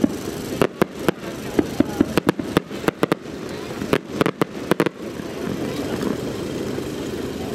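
Fireworks bursting in a rapid, irregular string of sharp bangs and cracks for about five seconds, then stopping.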